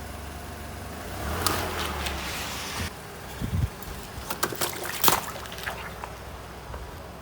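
A car's tyre rolling slowly over objects, over a steady low engine rumble. A hissing spray comes in about a second in and lasts under two seconds, then a string of sharp cracks and crunches follows in the second half, the loudest just after the five-second mark.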